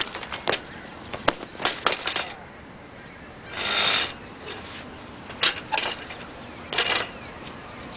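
BMX bike on concrete: sharp metallic clicks and knocks, then a half-second scrape about three and a half seconds in as rider and bike crash to the ground, followed by a few more clinks and scuffs from the downed bike.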